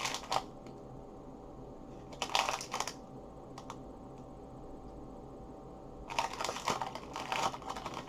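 Foil Pokémon booster pack wrapper crinkling and rustling as it is torn open and handled, in three bursts: briefly at the start, again around two seconds in, and longer near the end.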